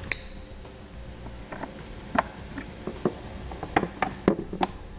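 A single sharp snip of side cutters clipping a zip-tie tail, then scattered light plastic clicks and knocks as the tail light is handled and its wiring plugged back in.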